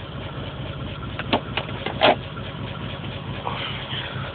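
Car engine idling steadily while it sets a P0300 random-misfire code, with a few sharp clicks over it.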